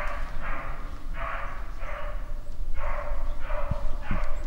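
Beagle baying on a rabbit's scent trail: a steady run of similar barks, about seven, one every half second or so, the sign of the hound running the rabbit.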